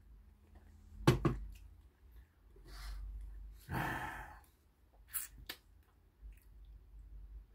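Two quick sharp knocks about a second in as a beer can is set down on a table, then a man's breathy sigh a few seconds later, followed by a couple of faint clicks.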